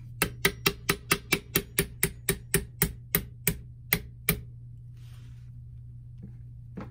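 Small hammer tapping a retaining pin through the wooden forend of a Martini Cadet rifle: about sixteen quick, sharp taps at roughly four a second, slowing slightly before they stop a little past four seconds in. One light knock near the end.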